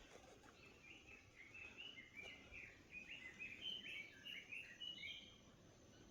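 A bird singing faintly: a run of quick, high chirping notes starting about a second in and stopping shortly before the end, over a quiet outdoor hush.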